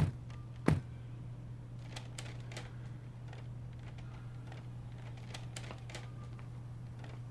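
Two sharp knocks, less than a second apart, then scattered light clicks and taps over a steady low hum.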